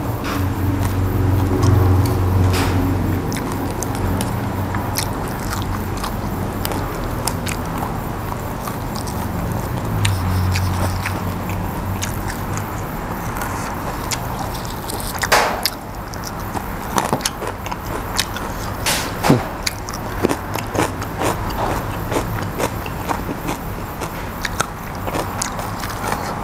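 A person chewing and biting into spicy raw beef koi and fresh side vegetables, close to the microphone, with many short crisp clicks that grow more frequent in the second half. A low rumble swells in the background near the start and again about ten seconds in.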